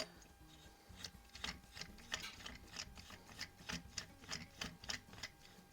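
A run of faint, irregular clicks, about three or four a second, as a 12-gram CO2 cartridge cap is screwed by hand into the Benjamin AS392 rifle's cartridge tube.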